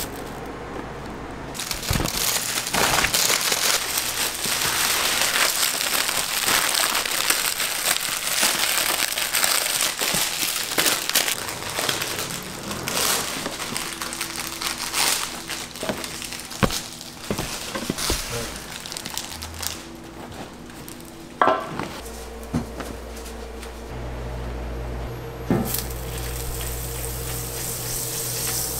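Kitchen handling sounds: loud plastic crinkling and rustling with scattered clicks and knocks. From a little after the middle a steady hum sets in, and near the end butter starts to sizzle on a hot flat-top griddle.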